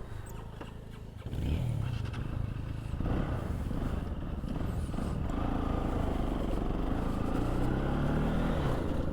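Motorcycle engine running, getting louder about a second in as the bike pulls away, then rising slowly in pitch as it accelerates.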